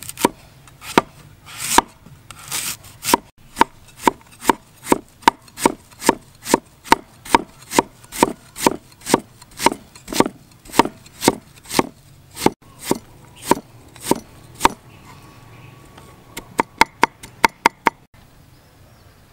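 Cleaver chopping taro root on a round wooden chopping board: sharp knocks of the blade on the wood, evenly about two a second, then a quick run of faster chops near the end.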